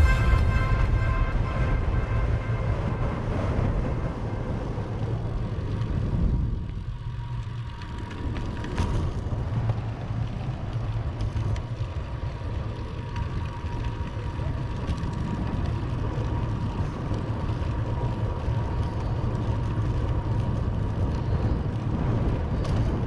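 Wind rumbling on the microphone and road noise from a moving bicycle, steady, with a quieter stretch about seven seconds in.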